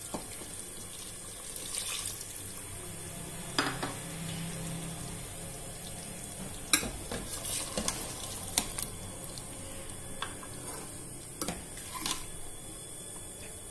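Water poured from a bowl into a pressure-cooker pot of chicken and potato curry to make the gravy, and the curry stirred with a metal spoon that clinks against the pot several times.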